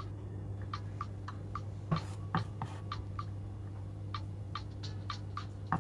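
Light, irregular clicks and taps of kitchen utensils during food preparation, about two a second with a few louder knocks, over a steady low hum.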